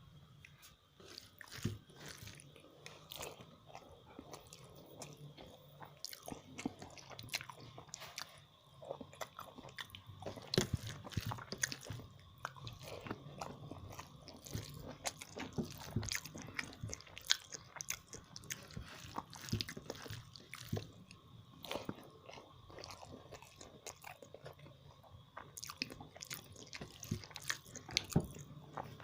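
Close-up eating sounds: a person chewing rice and curry with wet mouth smacks and irregular clicks, with occasional crunchy bites.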